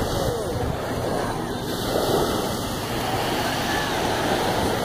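Gentle surf washing on a sandy beach, a steady wash of noise, with wind on the microphone.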